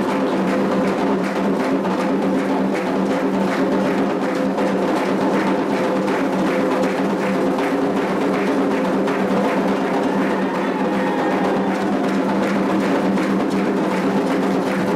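Candomblé ritual music: hand drums (atabaques) and a struck bell or block keep a steady, driving rhythm over held pitched tones.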